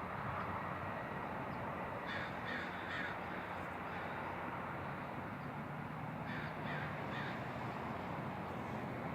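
A bird calling in two runs of short, harsh, repeated calls, about four each, the first about two seconds in and the second about six seconds in, over steady outdoor background noise with a low hum.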